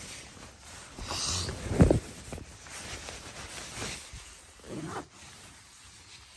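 The nylon shell of an Arc'teryx Atom LT hoody rustling and rubbing as the jacket is handled close to the microphone. There is a loud thump just under two seconds in, and a softer rustle near five seconds.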